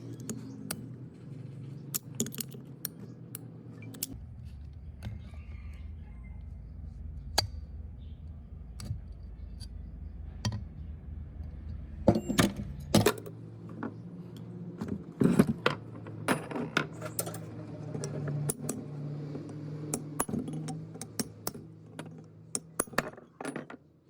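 Small metal parts clinking and knocking as they are handled and tapped, in irregular clusters with the sharpest knocks around the middle, over a steady low hum.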